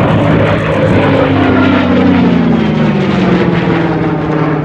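Propeller-driven airplane flying past, loud, its engine note falling in pitch as it passes from about the middle onward.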